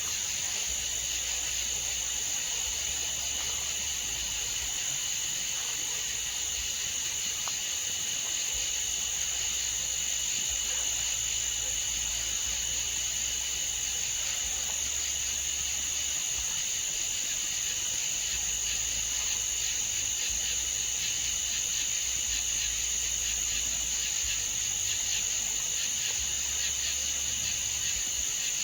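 Steady chorus of night insects such as crickets: a continuous high-pitched trill that does not let up, with a second, lower trill beneath it.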